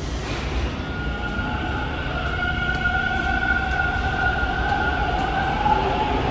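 TTC Bombardier T1 subway train moving through the station: a steady low rumble with a high whine in two tones that comes in about a second in and fades near the end.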